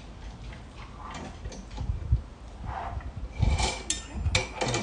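Stainless-steel rotisserie fork being slid along the spit rod and pushed into the meat: soft scraping and handling noise, then a few sharp metallic clicks with a brief ringing in the last second and a half.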